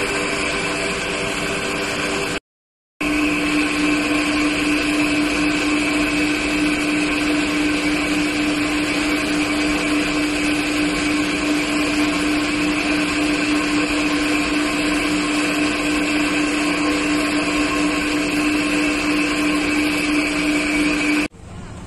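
Steady machine hum and whir inside an enclosed Ferris wheel gondola, with a constant low drone and a higher whine. It cuts out for about half a second near the start, comes back with a stronger low drone, and stops abruptly just before the end.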